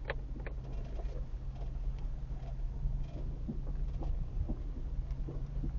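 Inside a vehicle driving slowly over a rough, rutted dirt road: a steady low drone with scattered knocks, rattles and small squeaks, the two sharpest knocks in the first half second.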